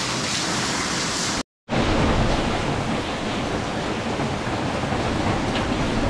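Underground waterfall in a limestone cave, a steady loud rush of water falling straight down. The sound cuts out for a moment about a second and a half in, then comes back deeper and fuller.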